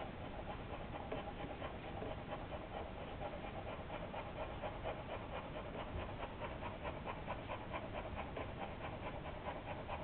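A litter of week-old boxer puppies nursing on their dam, with a fast, steady rhythmic panting-like sound of about four to five beats a second.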